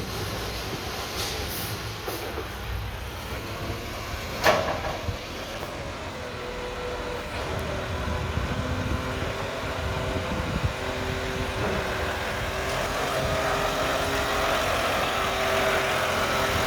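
Mack garbage truck with a McNeilus front-loader body, its diesel engine running, with one sharp bang about four and a half seconds in. From about six seconds a steady whine joins, and the engine slowly grows louder.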